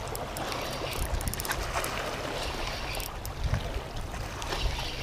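Wind buffeting the microphone over water lapping, with scattered faint clicks.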